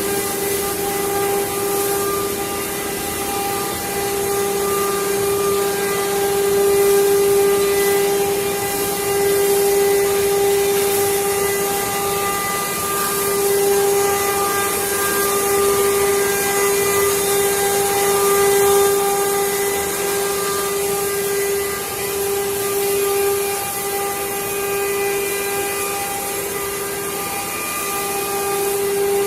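CNC wood-carving machine running, its spindle giving a steady high whine with overtones over a hiss of cutting, swelling and easing slowly in level.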